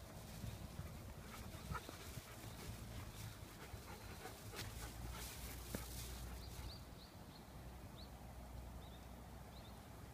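A dog panting close by, with a few faint short high squeaks in the last few seconds.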